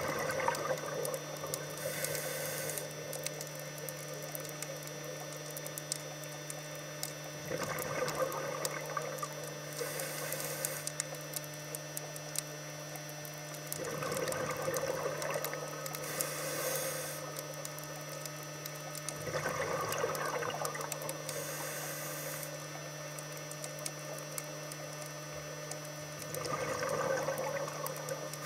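Scuba diver breathing through a regulator underwater: about five breaths roughly six seconds apart, each a bubbling gurgle lasting a second or two followed by a short sharp hiss. A steady low hum runs underneath.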